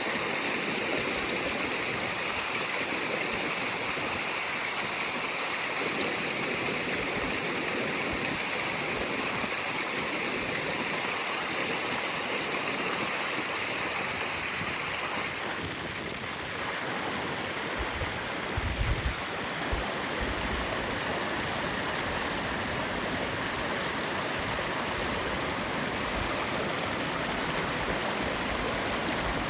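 Rainwater flowing fast in a stream, a steady rushing noise, with a few low bumps on the microphone about two-thirds of the way through.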